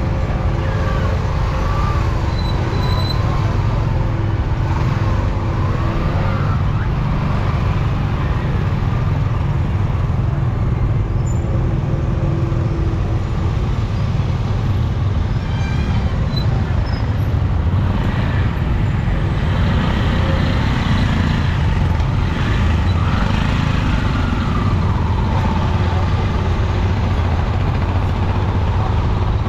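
Busy street traffic heard from a moving motorbike: a steady, loud low rumble of engines and road noise from the surrounding motor scooters and auto-rickshaws, with a few faint passing tones and glides over it.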